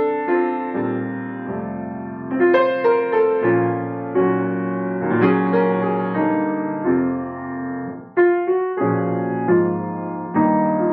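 Solo piano-style keyboard music: chords struck at a moderate pace, each ringing and fading before the next, with a brief dip about eight seconds in before a loud chord.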